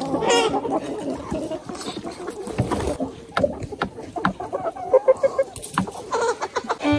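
Chickens clucking, several birds calling over one another in short, irregular calls, with sharp clicks in between.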